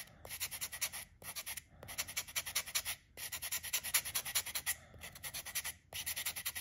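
Small hand sanding block rubbed back and forth along the edge of a thin 0.2 mm aluminium sheet, sanding off excess metal, in quick short strokes several a second. The strokes come in runs broken by brief pauses.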